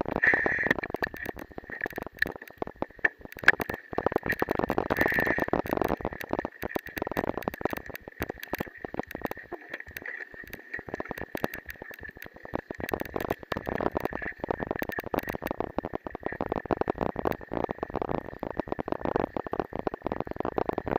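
Bicycle ride over a muddy, rutted dirt track: tyres rolling through mud and gravel under constant rattling and knocking, with a thin steady high tone throughout. It eases for a couple of seconds about halfway through.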